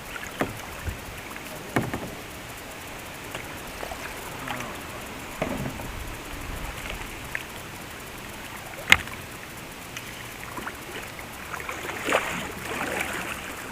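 Kayak on the water, with paddle splashes and scattered knocks against the hull over a steady water wash. One sharp, loud knock comes about nine seconds in.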